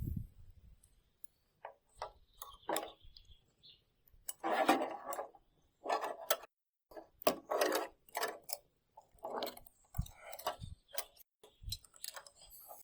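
Hand-tool work: a series of short scraping strokes with gaps between them, and a few light knocks near the end.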